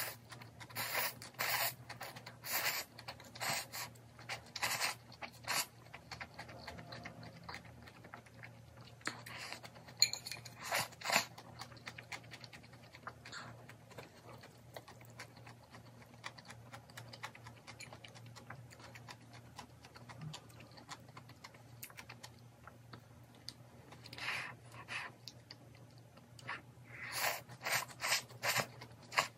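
Ramen noodles slurped from a small bowl in quick runs of short, loud slurps, several times, with quieter chewing between. A faint steady low hum sits underneath.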